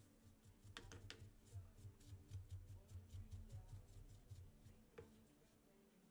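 Faint scratching of a small brush sweeping metal chips off a machined workpiece, quick strokes about five a second, with a couple of light clicks early on and another about five seconds in. A low rumble of handling runs under the first part and stops partway through.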